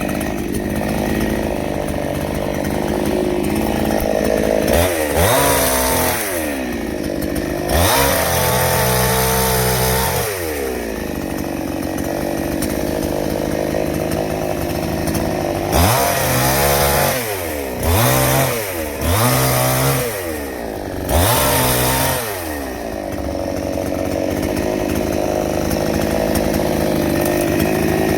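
A chainsaw-type tree-cutting machine's small petrol engine running steadily and revved up about six times, its pitch sweeping up and back down. The longest rev comes around a third of the way in, and a quick run of revs comes in the second half.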